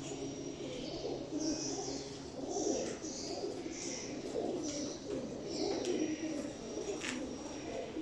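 Homing pigeons cooing in their loft cages, many overlapping coos going on without a break.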